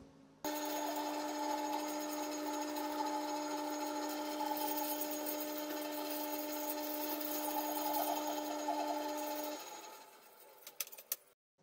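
Milling machine spindle running with an end mill cutting a flat on a small metal part: a steady hum with a rough cutting hiss. The hum cuts off abruptly near the end and the hiss dies away, followed by a few faint clicks.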